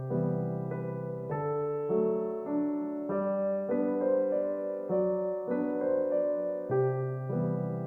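Background instrumental music: a gentle keyboard melody over held bass notes, with the notes changing about every half second.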